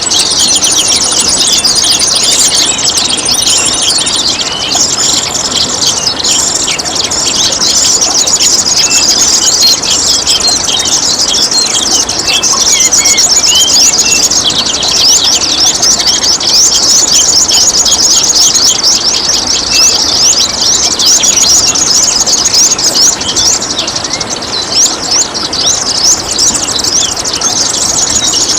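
Songbirds singing in dense, rapid high-pitched chirps and trills over the steady trickle of running water.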